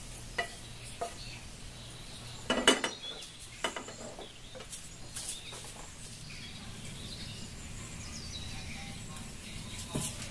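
Wooden spatula scraping and knocking against a frying pan as cooked beef is scraped out of it, with a few light taps and one louder clatter about two and a half seconds in, another knock about a second later, then quieter.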